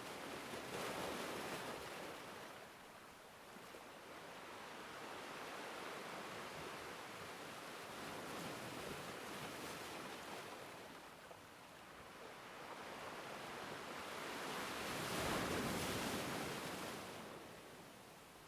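Faint ocean waves washing in slow surges that swell and fade, the strongest near the end.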